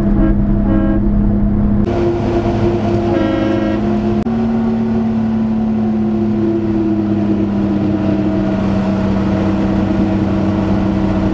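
Small 660cc three-cylinder mini truck engine running steadily under way, heard from inside the cab with road noise underneath. Its pitch shifts a little about four seconds in, then sinks slowly.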